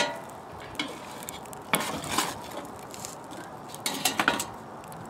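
Hot charcoal briquettes clinking and scraping in a metal pan as a metal chimney starter is lifted off them and they are moved with metal tongs: a sharp knock at the start, then clusters of clinks and scrapes about two seconds in and again about four seconds in.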